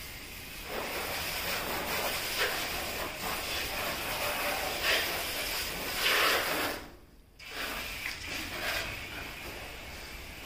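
Water spraying from a garden hose nozzle onto a car, a steady hiss that rises and falls as the spray moves over the body, cutting out briefly about seven seconds in.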